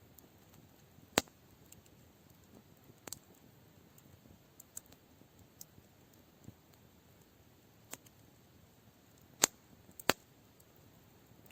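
Campfire crackling: a quiet crackle with scattered sharp pops from the burning wood. The loudest pops come about a second in and twice close together near the end.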